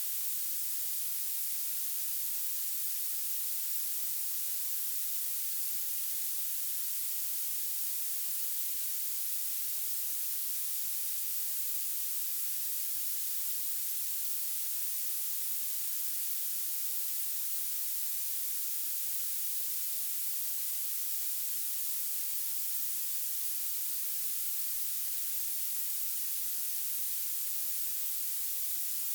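Violet noise: a steady, unchanging hiss weighted heavily toward the highest pitches, bright and thin with almost nothing in the bass.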